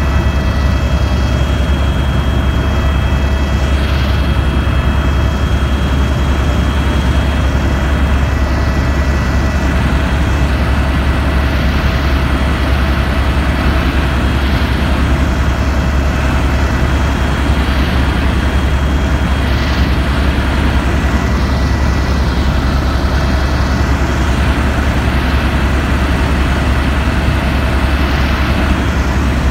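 Helicopter in flight: a loud, steady low rotor and engine drone with a thin, steady high turbine whine over it.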